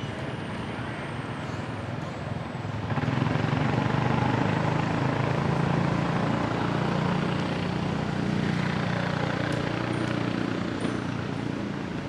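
A motor vehicle's engine running close by, a steady low hum that grows louder about three seconds in and eases off near the end.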